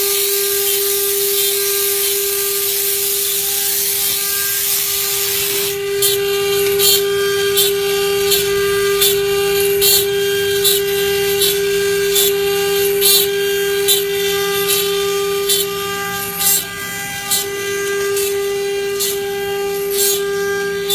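CNC wood carving machine running, its spindles giving a steady high whine. For the first six seconds there is a hiss of cutting; after that, short scraping strokes come regularly, about one or two a second, as the bits cut into the wood.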